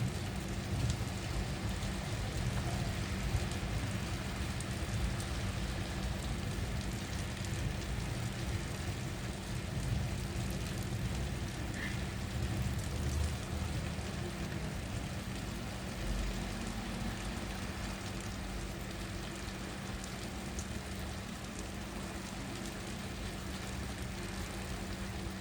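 Steady rain falling, an even hiss with a low continuous rumble underneath.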